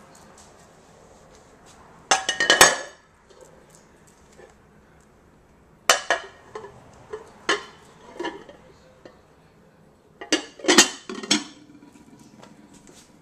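Dishes and metal utensils clinking and clattering on a kitchen counter. There are two clusters of rapid knocks about two seconds in and near the end, with single clinks in between.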